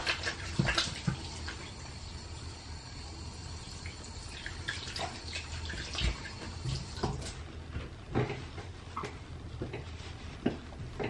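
Water running from a bathroom tap, a steady rush, with scattered light knocks and clicks at irregular moments.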